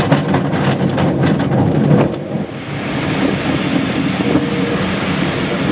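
Schempp-Hirth Duo Discus glider on its takeoff roll over a grass strip: the wheel and airframe rumble and rattle over the bumpy ground. About two seconds in the rattling stops as the glider lifts off, leaving a steady rush of air past the canopy.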